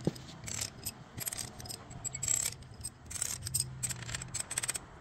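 Steel pushrods clinking against each other and the cylinder head as they are drawn out of an Isuzu diesel engine and bunched in one hand: a string of light metallic clicks and rattles about every second.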